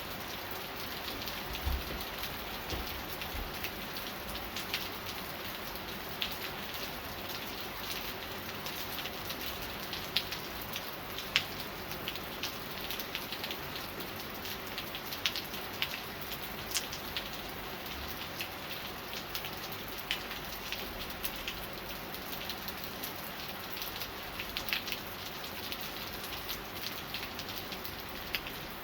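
Steady rain falling, with a steady hiss and many scattered individual drops ticking sharply, a few of them louder and closer.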